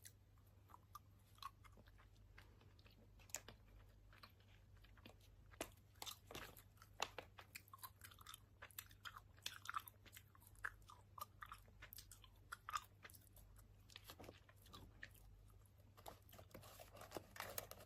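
A person chewing a soft sour gummy candy with the lips smacking, making irregular wet smacks and clicks, busiest near the end. The chewing is faint, picked up without a dedicated microphone.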